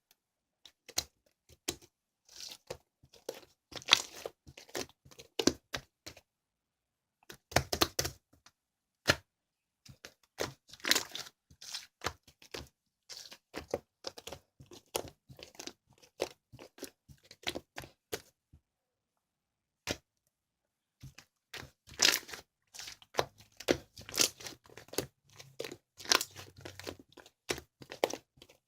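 Close-up crinkling, crackling and tearing sounds in irregular clusters of sharp clicks, broken by two short silent gaps.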